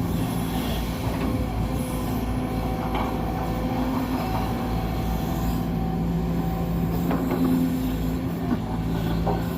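Hydraulic excavator's diesel engine running steadily, with occasional short metallic squeals and clanks.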